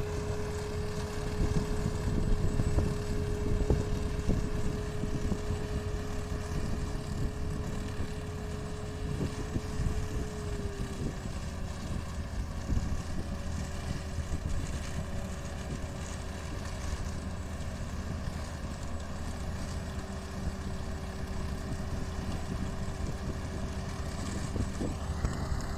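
2015 CRF self-propelled tomato harvester and the truck beside it running steadily as the harvester works, a low rumble with a steady whine that drops slightly in pitch about ten seconds in.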